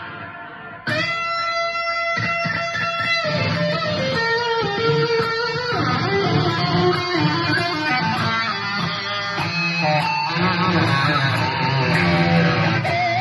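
Fender Telecaster electric guitar played through a Blackstar amplifier. After a quiet first second, a held note rings out. A run of picked single notes and short phrases follows, and it gets busier toward the end.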